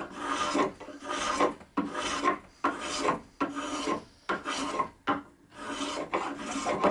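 Spokeshave cutting shavings from the curved back of a cherry chair leg in a steady run of short scraping strokes, a little more than one a second.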